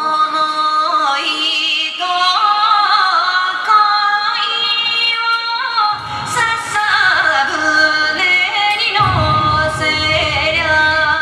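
Yosakoi dance song with a woman singing, played back over a loudspeaker system; a deep beat comes in about six seconds in and gets heavier near nine seconds.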